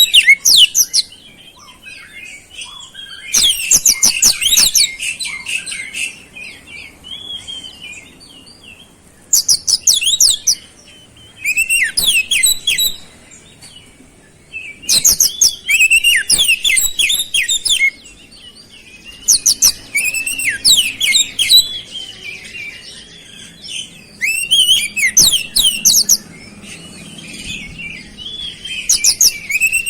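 Oriental magpie-robin (kacer) singing: loud bursts of rapid, high, sweeping notes every few seconds, with softer twittering between, its song laced with imitations of flowerpecker calls.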